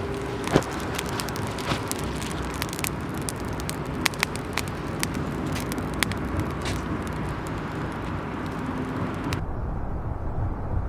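Wood fire crackling with scattered sharp pops over a steady low rumble; the crackling stops suddenly about nine seconds in, leaving only the rumble.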